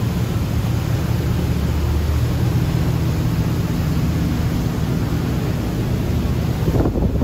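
Motor cruiser's engines running steadily at cruising speed, a low drone mixed with the rush of water along the hull. Near the end, wind buffets the microphone over the sound of the spray.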